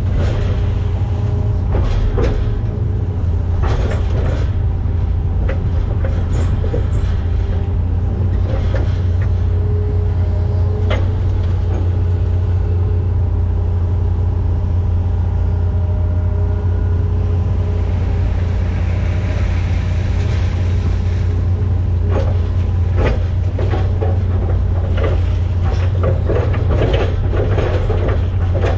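Hitachi ZX210F-5G hydraulic excavator's diesel engine running steadily as heard from inside the operator's cab, with a low hum and a steady whine over it. Short clanks and knocks from the boom and bucket come now and then as it digs mud from a ditch, and come thick near the end.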